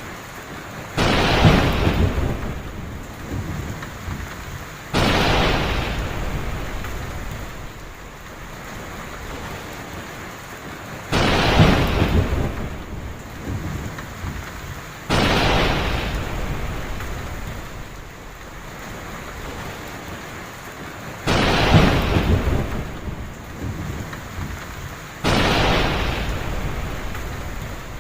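Heavy rain falling steadily, broken by six sudden thunderclaps, each cracking sharply and then rumbling away over a few seconds. The claps come in pairs about four seconds apart, the pairs repeating roughly every ten seconds.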